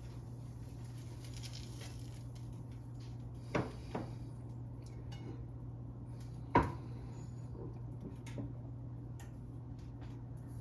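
Steady low indoor hum, broken by two sharp knocks close together a third of the way in and a louder knock past the middle, like something hard tapped or set down.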